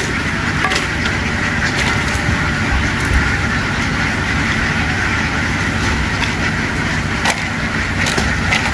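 A boat's engine running steadily, a low rumble under a constant dense din, with a few sharp clicks scattered through.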